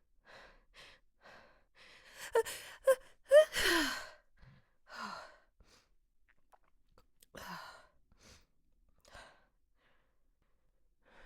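A woman's sneeze buildup: breathy inhalations and a quick run of hitching catches in the breath, peaking in a loud, breathy sighing exhale that falls in pitch. The sneeze does not come. It is a false start, with a few fainter breaths after it.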